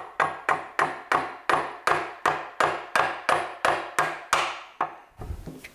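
A mallet repeatedly tapping a metal fitting onto a shaft end on the cast body of an Elliott 10M metal shaper: about fifteen even strikes, roughly three a second, each with a short metallic ring, stopping a little before the end.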